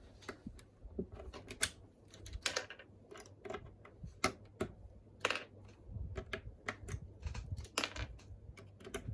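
Mechanical keyboard keys, a Royal Kludge RK61, being typed on: irregular plastic clacks a few per second, some louder than others.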